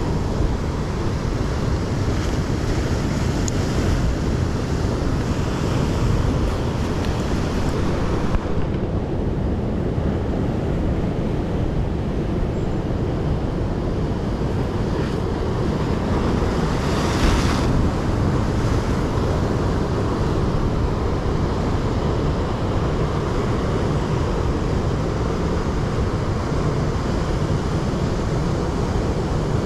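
Heavy surf breaking on rocks, a continuous wash of crashing waves with wind rumbling on the microphone. One wave breaks louder about seventeen seconds in.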